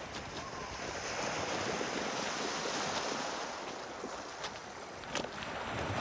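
Lake Huron waves washing and lapping on a rocky beach in a steady hiss, with a couple of small sharp clicks near the end.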